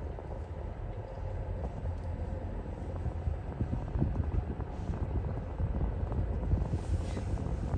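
Steady low rumble of road and engine noise inside a car's cabin as it drives slowly.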